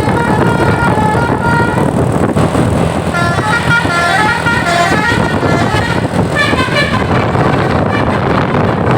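Bus telolet horns of the Basuri type playing short multi-note tunes over the steady noise of bus engines: repeated notes at first, a rising-and-falling run in the middle, and a quick warbling trill about two-thirds of the way in.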